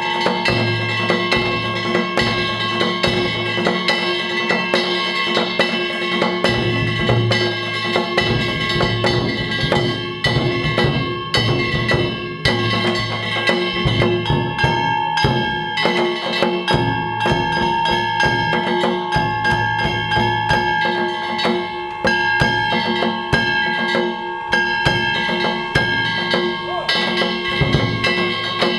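Danjiri festival-float hayashi: hand gongs struck rapidly and without pause, ringing on steady metallic tones, over taiko drum beats that come and go.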